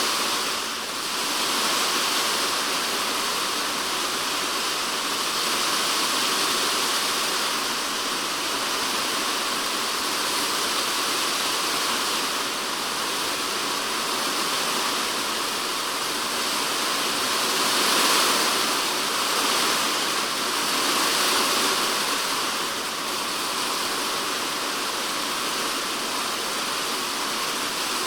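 Typhoon rain falling steadily on a polycarbonate shed roof, heard from inside as a dense, even hiss of drops. It swells briefly a little over halfway through as gusts of heavier rain pass.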